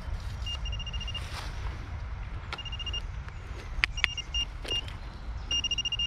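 Metal-detecting pinpointer beeping at one high pitch, in short trains of rapid pulses and single beeps, signalling a shallow metal target in the soil. A steady low rumble runs underneath, with two sharp clicks about four seconds in.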